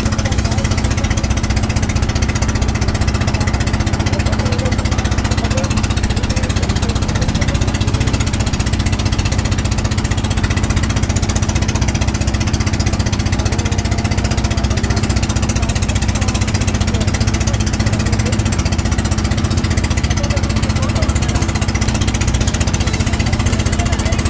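A small engine running steadily at an unchanging speed.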